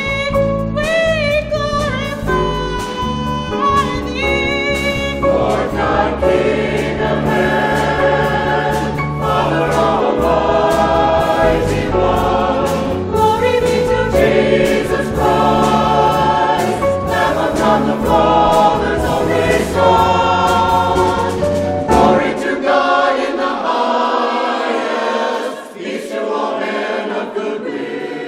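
Gospel choir singing in harmony with piano, bass and drums accompaniment. The low bass notes drop out about six seconds before the end, leaving the voices and upper accompaniment.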